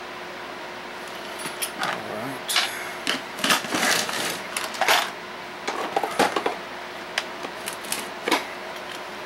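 Irregular clicks, taps and scrapes of small metal hardware and hand tools being handled, over a steady background hum.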